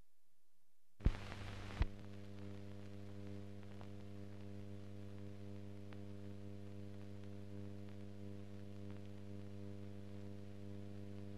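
Hum and hiss of an old 1940 optical film soundtrack running with no programme on it. It starts after a second of silence with a click, a second click follows shortly after, and then a steady low hum goes on with faint crackles.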